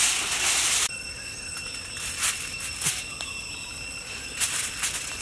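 Aluminium foil crinkling under hands, stopping abruptly about a second in. Then a steady chorus of insects trilling at several high pitches, with a few short crinkles and taps as a snake's body is laid on the foil.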